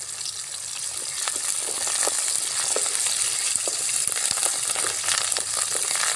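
Curry leaves sizzling and crackling in hot oil with shallots and garlic in a metal kadai, stirred with a wooden spatula. The sizzle swells about a second in, with scattered pops.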